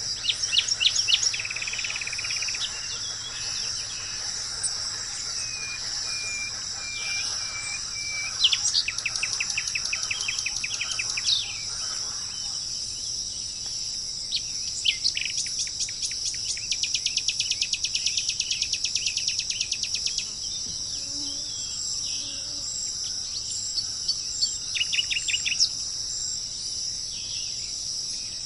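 Small birds singing in rapid trills and repeated chirps over a steady high-pitched drone of insects. Two long trills of fast repeated notes stand out, one about a third of the way in and one just past the middle.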